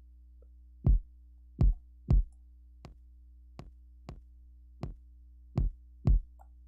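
Soloed kick drum from a mix playing a repeating pattern of single and paired hits. For about two seconds in the middle the hits drop much quieter and lose their low end as a frequency cut is applied, then return at full strength.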